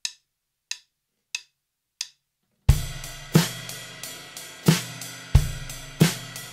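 Four sharp clicks, evenly spaced, count in a Gretsch drum kit that starts about two and a half seconds in. The kit plays a steady cymbal and hi-hat ostinato with the hi-hat foot, with single bass drum beats placed through a bar of 4/4.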